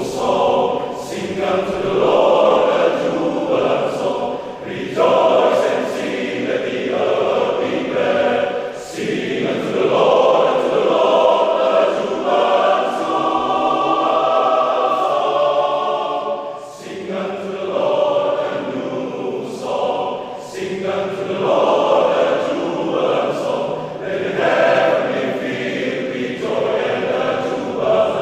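Choir singing a sacred anthem, many voices holding chords in phrases with short breaths between them.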